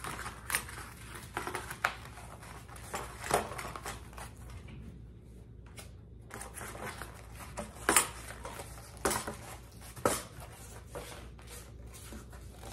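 A strip of corrugated cardboard being bent and rolled around a wooden rod to curve it, with soft crackling of the cardboard and scattered sharp knocks against a hard countertop, the loudest about eight seconds in.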